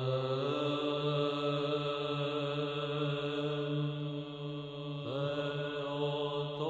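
Orthodox church chant: voices holding long sustained notes, with a new phrase starting about five seconds in.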